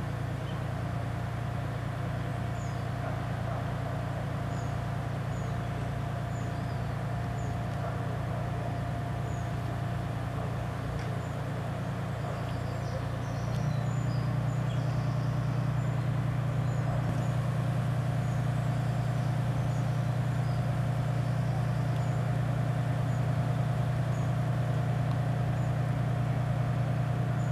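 Mobile crane's diesel engine running steadily, louder from about halfway through as it works the lift of the footbridge. Faint bird chirps are heard above it.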